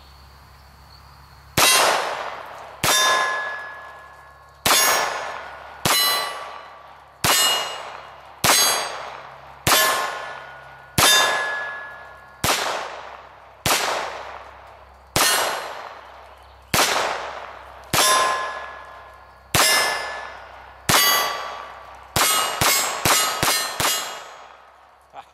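IWI/Umarex UZI semi-automatic pistol in .22LR firing at steel targets: about fifteen shots a little over a second apart, each a sharp crack followed by the ringing of the struck steel plate, then a quick string of about six shots near the end.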